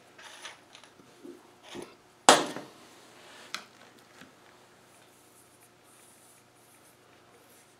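Small metal steering-box parts being handled and set down on a workbench: light clinks and rustles, with one sharp clack a little over two seconds in and a smaller click about a second later.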